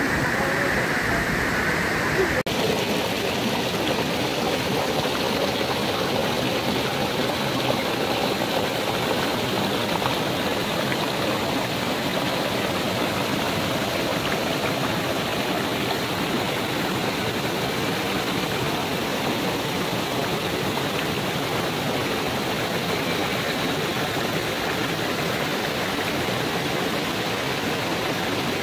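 Steady rush of water flowing over rocks in a shallow mountain stream below a waterfall, with a sudden change in tone about two seconds in.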